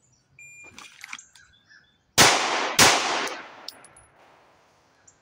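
Two 9mm pistol shots from an Arex Delta M, fired about half a second apart a little over two seconds in, each with a long echoing decay.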